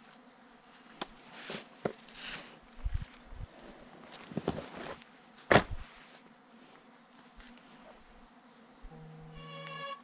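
A steady high-pitched drone of crickets, with scattered knocks and rustles from handling the phone and gear, the loudest about halfway through. Near the end a short buzzing tone sounds from the phone as a call is placed.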